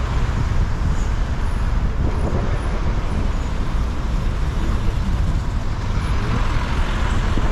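Steady traffic and road noise with a heavy, fluctuating low rumble, as heard from a moving vehicle in city traffic.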